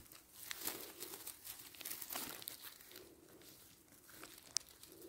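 Faint, irregular rustling and crinkling with scattered small snaps and clicks, as forest-floor vegetation is handled while mushrooms are being picked.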